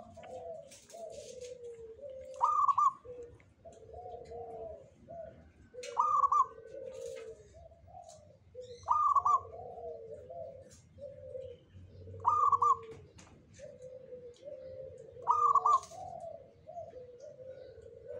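Zebra dove (perkutut) singing: a loud rolling coo phrase roughly every three seconds, five times, with softer, lower cooing notes between the phrases.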